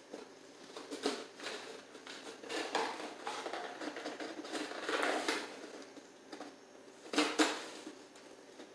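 Dog gnawing and pawing at a cardboard tube, the cardboard crunching and scraping in irregular bursts, with the loudest crunches about a second in, around five seconds in and about seven seconds in.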